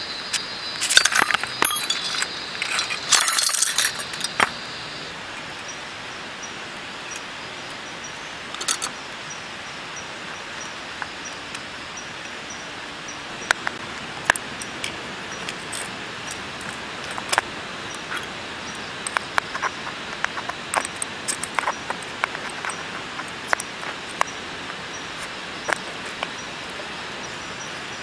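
Thin metal rods clinking and rattling against a metal tube as they are slotted into a rod-frame rack by hand: a burst of jangling in the first few seconds, then scattered single clicks. A steady hiss runs underneath.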